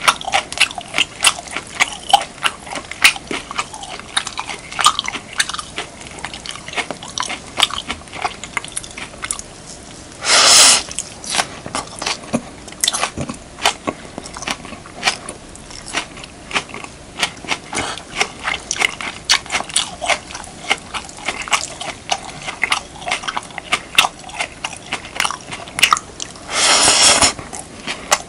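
Close-up eating sounds of beef, kimchi and rice: rapid wet chewing and crunching clicks, several a second. Twice, near the middle and near the end, a longer noisy burst of under a second cuts through the chewing.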